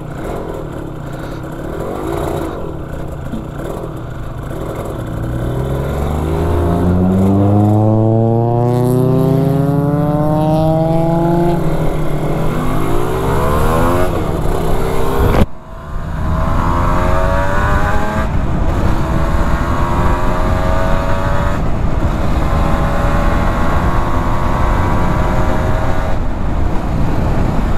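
1991 Suzuki RGV250 VJ22's two-stroke V-twin, through Arrow exhausts, pulling away and accelerating up through the gears. The pitch climbs, falls back at each gear change, with a sharp dip about fifteen seconds in, and climbs again. The freshly rebuilt engine is being run in and kept under about 6,000 revs.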